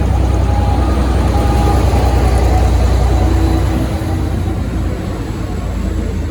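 V/Line N-class diesel locomotive running with a heavy, steady low rumble as the train departs. The rumble eases somewhat about four seconds in.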